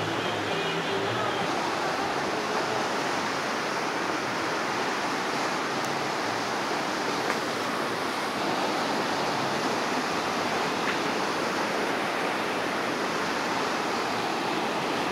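Fast, turbulent river rapids churning over rocks: a steady, full rush of whitewater that holds at one level.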